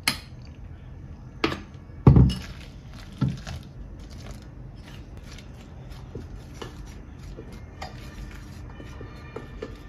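A few knocks of a measuring cup and utensils against a glass mixing bowl and countertop, the loudest a thump about two seconds in, as hot water is poured into flour; then light scraping and ticking of a utensil stirring the crumbly dough in the glass bowl.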